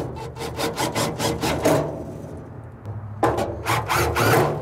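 Cordless drill/driver driving screws into the sheet-metal burn cup of a pellet grill, a rapid rasping run in the first couple of seconds and a second run from about three seconds in.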